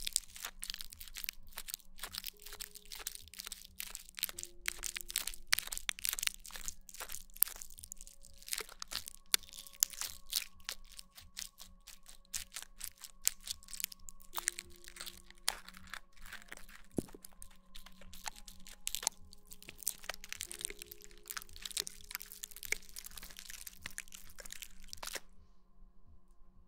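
Dense, close-miked crackling and crunching made of many small sharp clicks, typical of ASMR trigger sounds made by hands working right at the microphone. It stops abruptly near the end.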